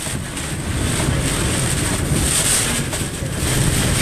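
Hurricane-force eyewall wind of a major hurricane rushing and gusting, with a heavy low rumble of wind buffeting the microphone.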